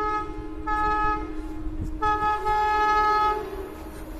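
Electric locomotive's air horn, a WAP-7, sounding from an approaching train in three blasts: the end of a long blast at the start, a short blast about a second in, and a longer blast from about two seconds in that fades out shortly before the end.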